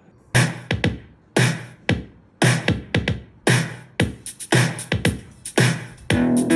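Music played through a MIVI Play Bluetooth speaker: an electronic drum beat with a heavy hit about once a second and quicker, lighter hits between. A fuller backing with bass and guitar comes in near the end.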